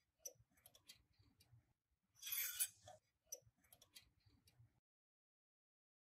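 Faint small metal clicks and a brief rattle about two seconds in, from a steel pedal connection rod and its bolt being unhooked from a sewing machine foot pedal.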